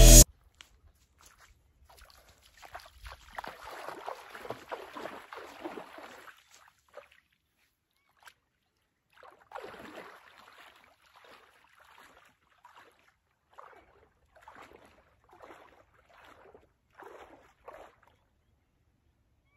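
Shallow lake water splashing and sloshing around a person's legs as he wades in. A few seconds of steady splashing come first, then a single splash about halfway, then a run of short sloshes about one a second near the end.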